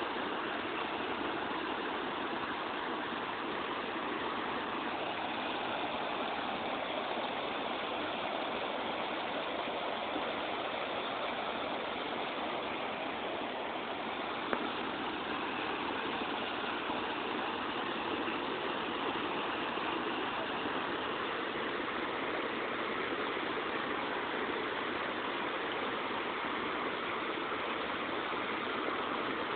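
Steady rush of water from a waterfall, an even, unbroken hiss with one small click about halfway through.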